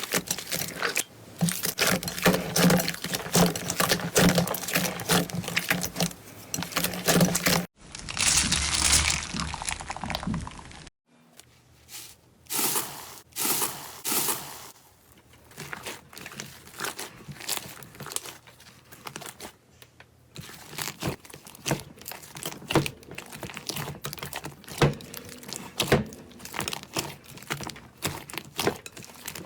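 Slime being squeezed, poked and stretched by hand: dense, rapid crackling and sticky popping clicks. The sound changes abruptly about 8 and 11 seconds in as the clips cut.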